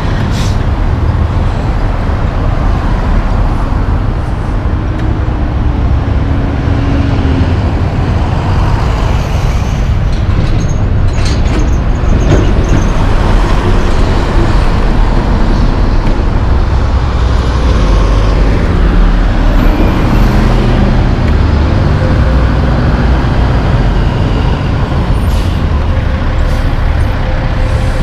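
Loud road traffic of heavy diesel trucks and cars passing close by: a steady engine rumble with tyre noise, as a tractor-trailer hauling a shipping container rolls past.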